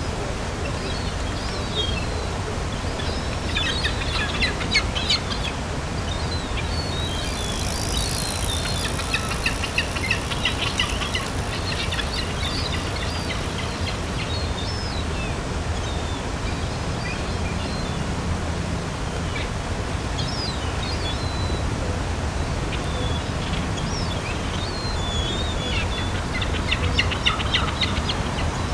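Seagulls calling, with scattered cries and a few bouts of quick, rapidly repeated calls, over a steady low background rumble.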